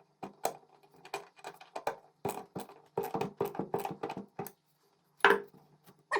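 Irregular clicks and light knocks of metal parts being handled and fitted by hand, some ringing briefly, over a faint steady low hum.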